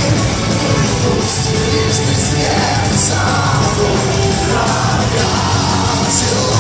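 Live power metal band playing loud: heavy drums with repeated cymbal crashes and full guitars, with vocals sung and shouted over them.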